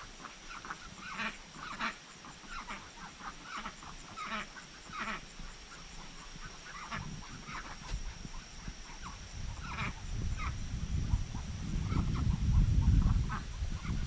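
A small flock of domestic ducks giving many short, quiet quacks and chatter calls as they walk together. A low rumble builds in the second half and is loudest near the end.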